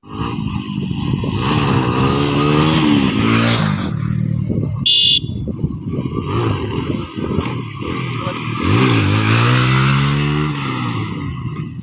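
Motorcycle engine accelerating twice, its pitch climbing each time, with a steady engine note and road noise in between. A brief high-pitched beep comes near the middle.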